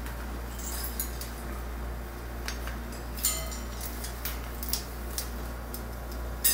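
Blue-and-gold macaw's beak tapping and clicking on a wooden ladder perch: scattered sharp clicks at uneven intervals, the loudest about three seconds in and near the end.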